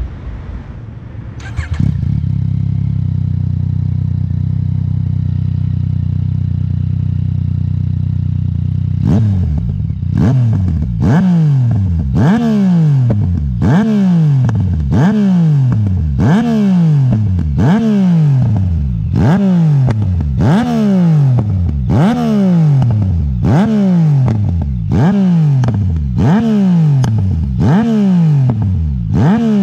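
Yamaha MT-09 three-cylinder motorcycle engine and exhaust idling steadily, then, from about nine seconds in, revved in repeated sharp throttle blips, about one every second and a half, each rising fast and falling back to idle.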